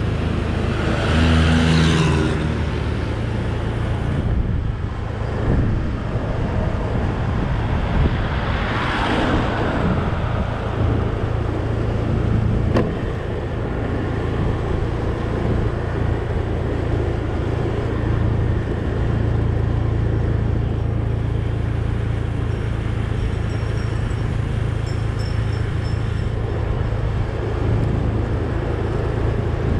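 Steady engine and road noise from a vehicle driving along a town street, with other vehicles passing about a second in and again around nine seconds in.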